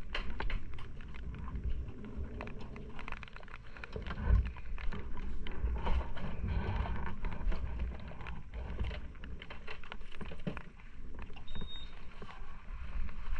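Rain falling, with many small drops ticking on the wet camera housing over a low rumble of wind and movement on the microphone.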